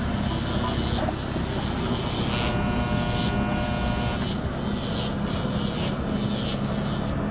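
Cartoon sound effect of a motor grader's engine running steadily, with a low hum and a hissing puff about every three quarters of a second. A higher held tone sounds for about a second and a half in the middle.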